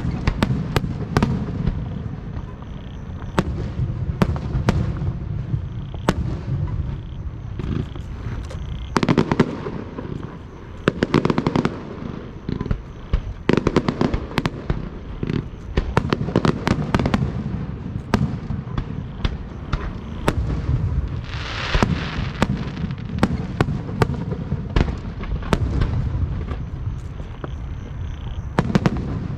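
Aerial fireworks bursting in rapid, continuous succession: sharp bangs and crackles over a steady low rumble of booms. About three-quarters of the way through there is a brief hissing burst.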